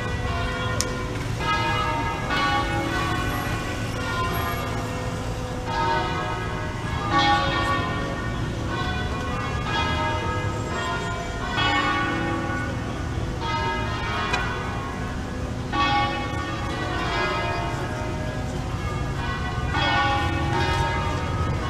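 Bells ringing in a long run of repeated strikes, each leaving several pitches sounding together, over a steady low rumble of city traffic.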